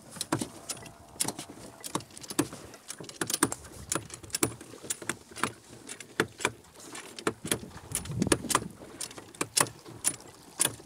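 Hand-worked flipper drive, a steel lever frame swinging fins in the water, clinking and rattling as it is pushed back and forth: repeated sharp metallic clicks, about two or three a second. A short low rumble comes about eight seconds in.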